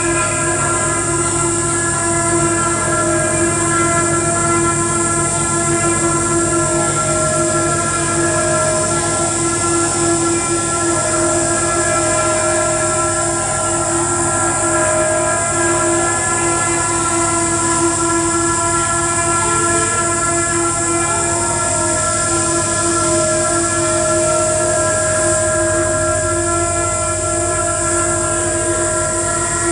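Experimental electronic noise drone played live through a small mixer: several steady held tones stacked over a hiss, with a fast flutter in the low end. One of the middle tones keeps switching on and off.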